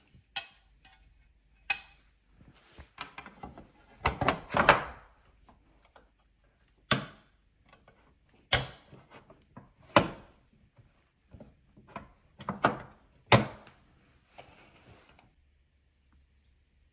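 A series of sharp knocks and clunks of hard objects being handled and set down, about a dozen spread over some fifteen seconds, with a cluster around four to five seconds in.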